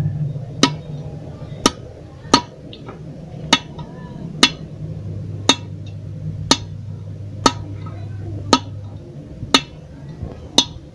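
Hand hammer tapping a steel plate into the aluminium gearbox casing of a Piaggio Ape, sharp metallic knocks about once a second, seating the bearing support plate in its place. A low steady hum runs underneath.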